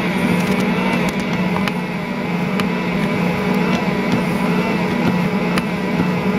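Ankarsrum Assistent Original stand mixer running steadily while kneading a large bread dough with its roller, a low, even motor hum with a few light clicks.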